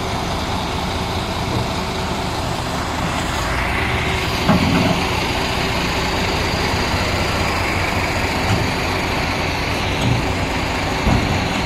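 Heavy diesel engine running steadily, with a few dull knocks, the loudest about four and a half seconds in.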